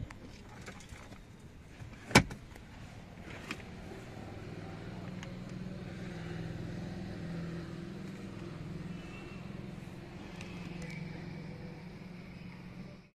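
Sharp plastic clicks inside a car cabin, the loudest about two seconds in, as the dashboard storage compartment and wiring are handled, followed by a steady low hum that cuts off suddenly near the end.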